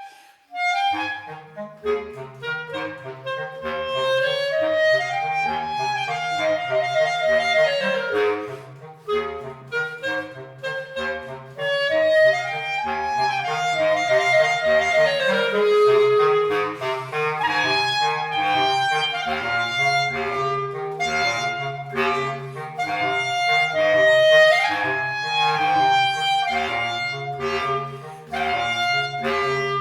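Clarinet playing a flowing melody over a steady accompaniment of repeated low notes and chords. After a short break a new passage begins about a second in.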